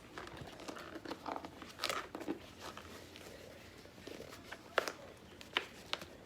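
Handling noise as a plastic water jug is worked into a stiff insulated sleeve: scattered rustling and crinkling with a few sharp clicks and knocks.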